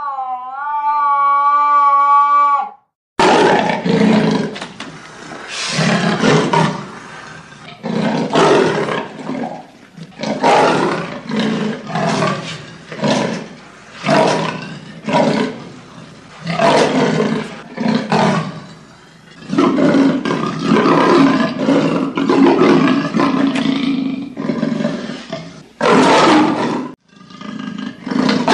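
Leopard calling with a long series of rough, rasping roars, roughly one to two a second, with a longer steadier stretch a little past the middle. It opens with a short pitched call that dips and then holds steady before the rasping starts about three seconds in.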